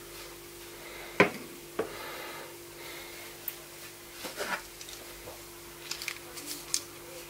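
Hard plastic storage containers being handled: several knocks and clicks, the loudest a little over a second in and a quick cluster near the end, over a faint steady hum.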